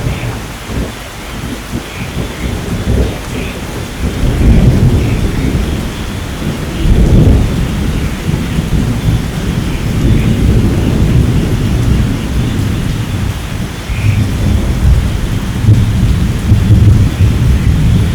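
Steady rain falling through a thunderstorm, with low rolling thunder that swells about four seconds in, again around seven seconds, and keeps rumbling on.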